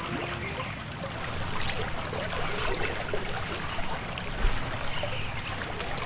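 River water flowing and trickling, with small irregular splashes close to the microphone. A thin steady high whine joins about a second in.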